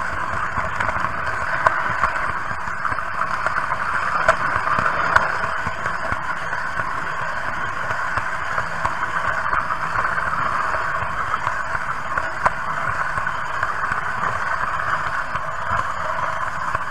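Märklin H0 model train running along the layout track, heard from a camera riding on the train: a steady mechanical running noise with a few sharp clicks.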